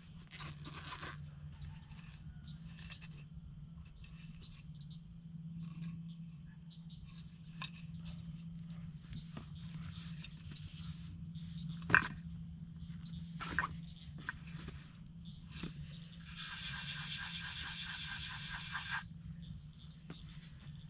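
Sandpaper scraping the tip of a turkey call's striker, dried off after morning dew wetted it: scattered scrapes and handling clicks, then a louder, steady rasping stretch of about three seconds near the end.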